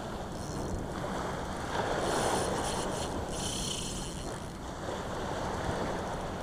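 Small waves washing and breaking on a sandy beach, with wind on the microphone. A brighter hiss comes in for about a second, a couple of seconds in.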